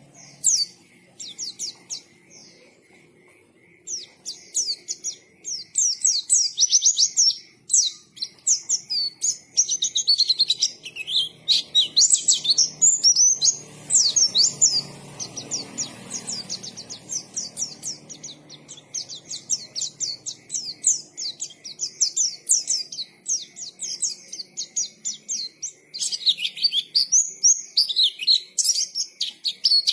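White-eye (pleci) singing a fast, high twittering song of rapid chirps. A few scattered notes open it, then the song runs almost without a break, pausing briefly near the end before starting again.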